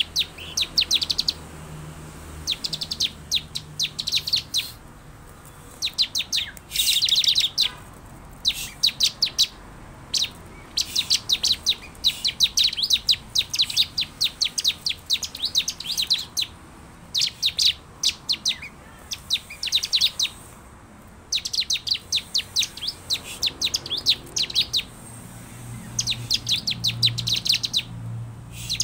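Bar-winged prinia (ciblek) song: rapid dry chattering trills in bursts of one to two seconds, separated by short pauses and repeated over and over.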